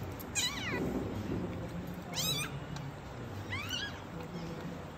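Newborn Shih Tzu puppy crying: three short, high-pitched squeals while it is held and rubbed dry by hand just after birth.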